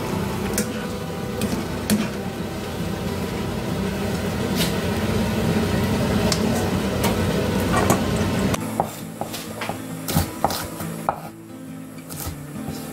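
Julienned burdock root sizzling as it fries in oil in a wok, with a few sharp knocks of a metal mesh strainer against the pan. About eight and a half seconds in, this gives way to a kitchen knife chopping red chili peppers on a wooden cutting board: irregular sharp knocks.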